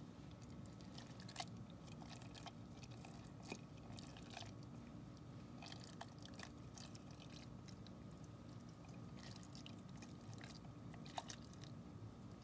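Spatula scraping and tapping inside a ceramic egg cooker, loosening cooked egg: faint scrapes and a few light clicks, over a low steady hum.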